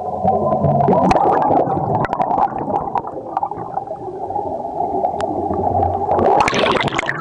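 Muffled gurgling, bubbling water churning, with a brighter rushing swell near the end.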